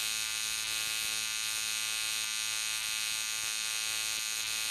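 AC TIG welding arc on aluminum buzzing steadily, an even electric buzz with a harsh high edge and no change in pitch.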